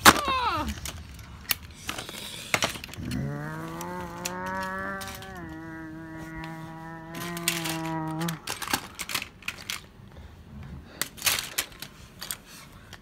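Plastic toys clicking and tapping as they are handled. In the middle comes one long, low hummed drone from a voice, about five seconds long, which drops a step in pitch partway through.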